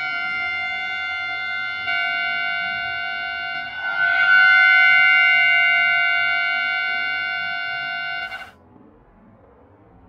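Train horn sounding one steady note in two long blasts, the second starting about four seconds in and louder, both cutting off sharply after about eight and a half seconds; faint hiss follows.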